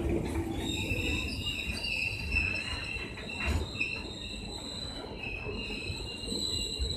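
Indian Railways passenger coaches rolling past, their wheels squealing in several high, wavering tones over a low rumble. The squeal sets in about half a second in.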